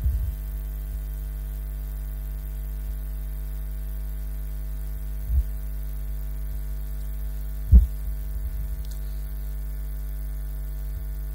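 Steady electrical mains hum. There is a soft low bump about five seconds in and a sharper thump near eight seconds.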